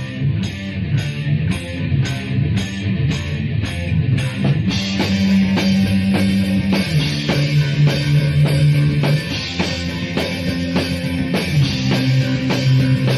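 Punk rock song with drum kit and guitar playing a steady beat; about five seconds in the band comes in fuller and louder.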